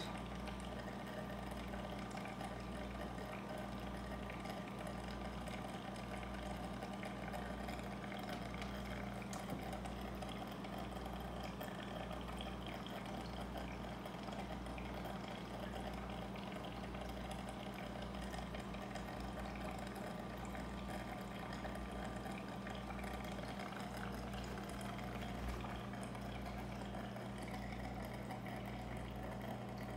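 Reef aquarium pumps and powerheads running with water circulating: a steady hum with a low throb about once a second.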